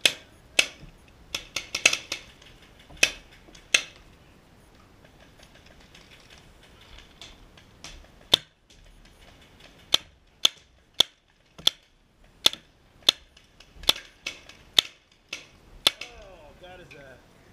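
Paintball markers firing: sharp pops, some single and some in quick strings, with a lull of a few seconds before the shots pick up again.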